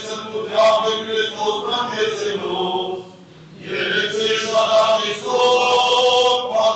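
Male voices chanting an Armenian liturgical hymn in long held notes, with a short break about three seconds in.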